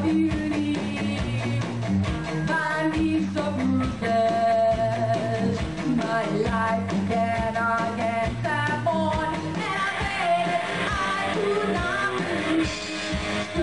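Live rock band playing: electric guitar and drum kit.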